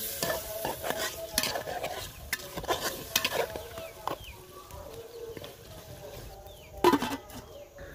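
Metal spatula stirring and scraping fish heads and pieces through sizzling spiced oil in an aluminium pot, with many small clinks against the pot. One louder knock comes about seven seconds in.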